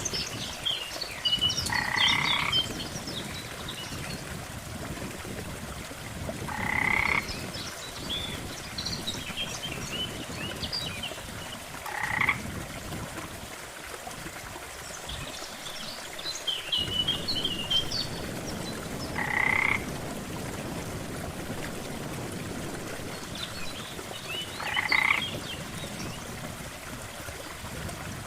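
Frogs calling: a short rattling croak about every five seconds, five times in all, among a scatter of smaller, higher calls.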